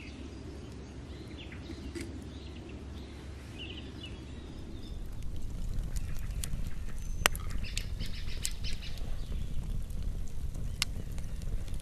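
Birds chirping over a low rumble. About five seconds in, a wood campfire takes over close up, crackling with sharp pops over the low rush of its flames.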